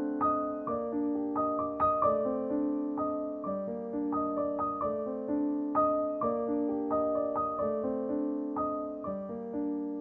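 Background piano music: a slow, gentle melody of struck notes that each ring and fade, over lower held notes.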